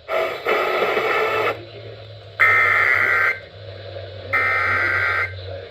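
Weather radio playing the opening data bursts of an Emergency Alert System (SAME) header: two one-second bursts of buzzy two-tone data, about two seconds apart, the first about two and a half seconds in, marking the start of a new alert. A brief burst of radio static comes before them, with a low steady hum underneath.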